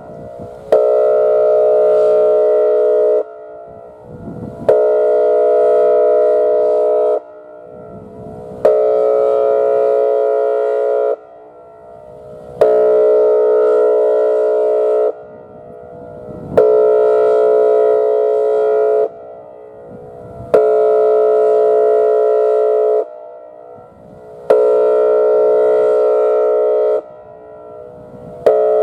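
Whelen 2805 electronic outdoor warning siren sounding its air-horn tone during a monthly test. It gives loud, steady, chord-like horn blasts of about two and a half seconds each, repeating every four seconds with a click at the start of each.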